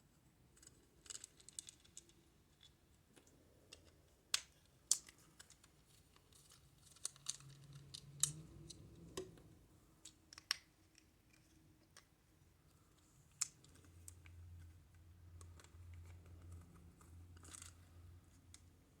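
Faint, irregular clicks and scrapes of a small homemade triangle-bit screwdriver turning out screws from the back of a plastic Madame Leota figure, with a few sharper single clicks as the plastic case is handled.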